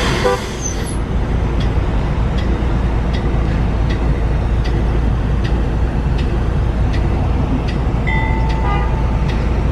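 Diesel switcher locomotive running as it rolls slowly along the track: a steady low rumble with regular clicks about twice a second, and a brief high squeal about eight seconds in.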